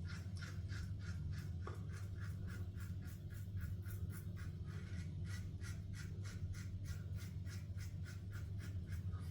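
King C Gillette safety razor with an Astra Green blade cutting one day of stubble through lather: a quick, even series of short scratchy strokes, about four a second.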